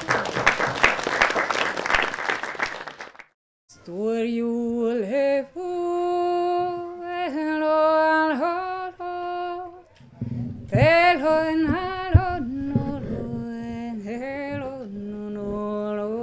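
Applause for about three seconds. Then, after a brief gap, unaccompanied voice singing long held notes that glide between pitches, joined by a second, lower voice about ten seconds in.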